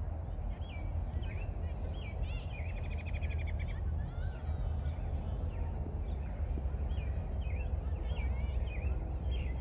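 Small birds chirping repeatedly, with a fast trill of rapid notes about three seconds in, over a steady low rumble.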